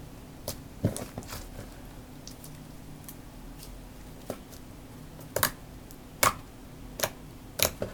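Homemade slime being poked and squished by hand, giving a string of sharp, irregular clicks and little pops, about eight over several seconds.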